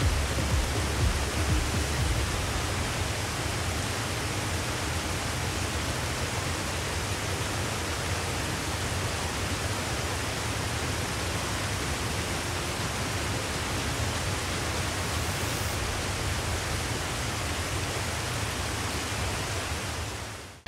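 Small waterfall rushing steadily as water pours down stepped stone ledges into a pool, fading out near the end.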